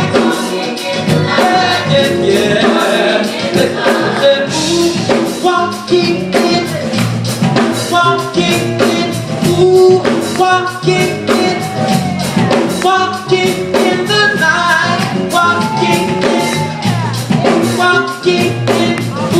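Gospel vocal group singing in harmony over a steady drum beat.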